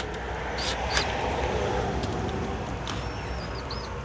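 A handheld electric drill is run briefly to tighten the ignition coil's mounting bolts on a riding mower, with a business card set in the gap to the flywheel as a spacer. A few clicks come near the start, and a few short high squeaks near the end.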